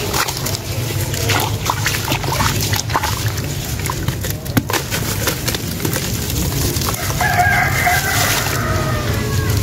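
Wet sand-cement chunks being squeezed and crumbled by hand into a basin of water, giving gritty crunching, crackling and splashing. About seven seconds in, a rooster crows once in the background for roughly two seconds.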